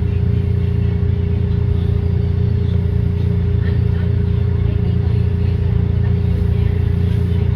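SEPTA trolley car running noise heard from inside the car: a steady low rumble with a constant electrical hum or whine.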